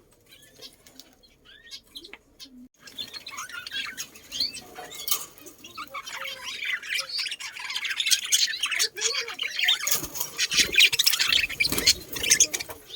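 A flock of birds chirping and squawking, many calls overlapping. Faint and sparse at first, it becomes dense and loud from about three seconds in, with some low thumps near the end.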